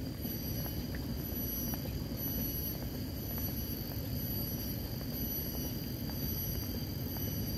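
Wind rumbling on the microphone, with a steady high buzz of insects in the surrounding forest that swells and fades in stretches.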